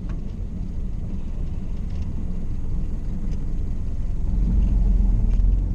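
Four-cylinder Burtz engine of a 1931 Ford Model A running under way, with road noise, a low steady rumble that grows gradually louder.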